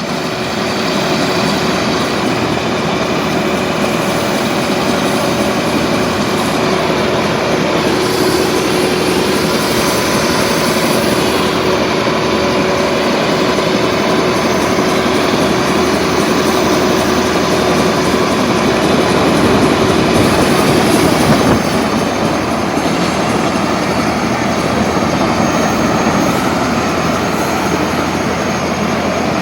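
Helicopter running steadily: a loud, even rotor and engine noise. A steady tone within it drops out about 21 seconds in.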